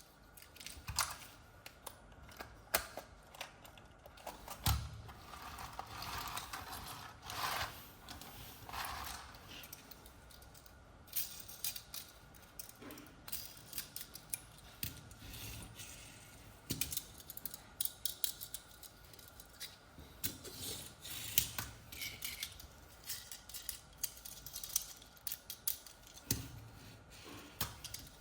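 Handling of toys and their packaging: irregular clicks, snaps and knocks, with a few stretches of rustling.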